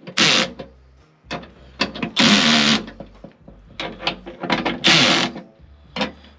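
Cordless Milwaukee drill-driver running screws into a sheet-metal blower housing: several short bursts of the motor, one longer run about two seconds in, with brief clicks between bursts.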